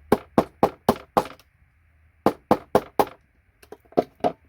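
Hammer tapping a paint scraper to knock connectors off computer circuit boards. There are two quick runs of sharp knocks, about four a second, and a few lighter taps near the end.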